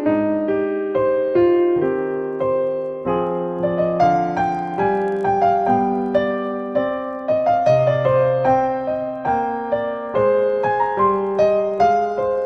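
Piano music: single notes and chords struck one after another, each starting sharply and fading away.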